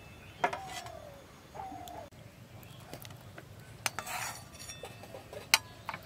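Steel utensils knocking and scraping against a steel kadai and a steel serving plate: a handful of sharp metallic clinks, one with a short ring near the end.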